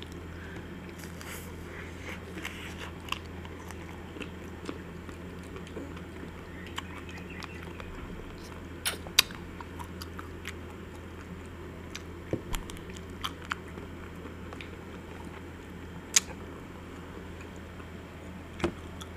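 Biting and chewing of chocolate-coated ice cream bars with almond pieces: sharp, irregular crunches of the chocolate shell, the loudest about nine and sixteen seconds in, over a steady low hum.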